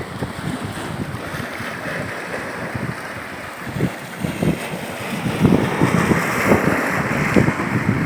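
Strong wind buffeting the microphone in irregular gusts over the steady wash of rough sea waves, growing louder in the second half.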